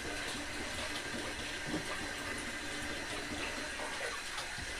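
Chicken curry simmering in a pot on low heat: a steady bubbling hiss with a few small pops.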